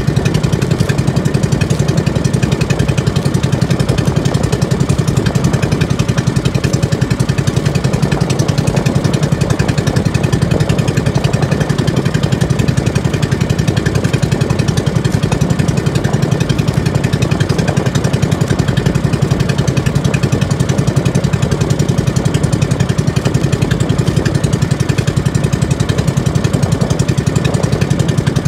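Small engine of a motorized outrigger fishing boat running steadily under way, a fast even chugging that does not change.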